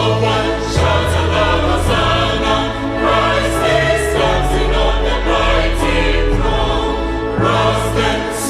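Choir singing a hymn in parts, with sustained low bass notes under the harmony.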